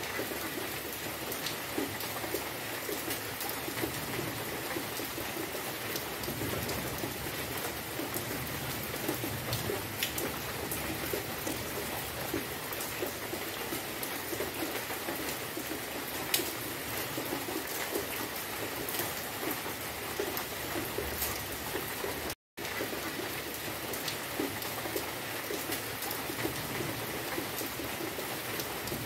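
Steady rain falling on foliage and a wet path, with scattered individual drop hits. The sound cuts out for an instant about three-quarters of the way through.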